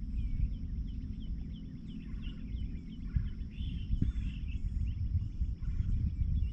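Many birds chirping and calling in quick, short notes over a steady low rumble.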